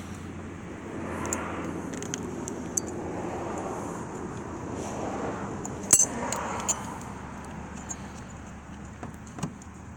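Small metallic clicks and clinks of a screwdriver working the snap ring along a steering column shaft, scattered and irregular, with one sharper clink about six seconds in.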